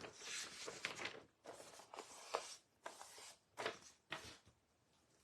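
Faint rustling and handling noises in a series of short, irregular bursts, with a few small clicks.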